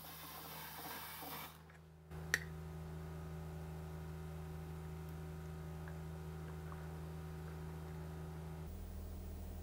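An espresso machine's steam wand hissing as it froths milk, stopping about one and a half seconds in. A single click follows, then a soft, steady low hum of sustained tones whose pitch shifts near the end.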